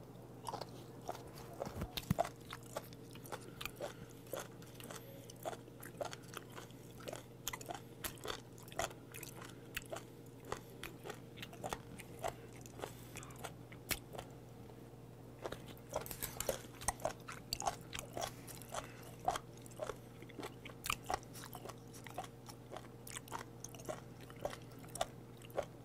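Close-miked chewing of raw spoon worm (gaebul): a run of crisp, wet clicks of the firm, chewy flesh between the teeth, several a second, over a faint steady hum.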